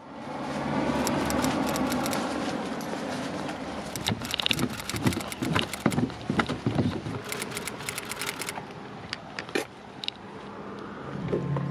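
Footsteps going down a steel staircase: a run of irregular clanks and clicks over a steady background hiss. A low steady hum comes in near the end.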